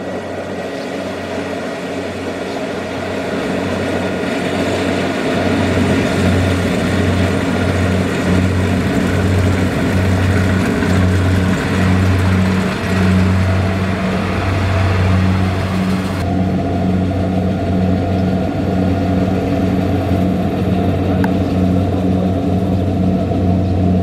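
Kubota DC-70 rice combine harvester's diesel engine running under load while it cuts rice, a steady low hum that pulses and grows louder over the first several seconds as the machine comes closer. About two-thirds through, the higher whir drops away abruptly.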